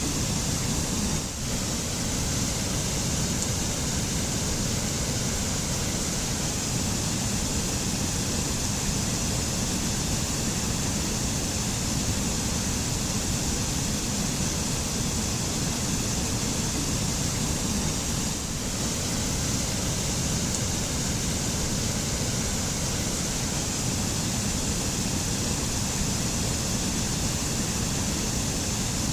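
Waterfall rushing: a steady, dense noise of falling water, with two brief dips in level.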